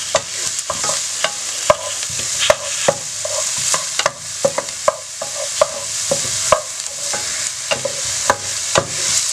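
Chopped onions sizzling in hot oil in a pan, with a spoon knocking and scraping against the pan as they are stirred, about two or three knocks a second.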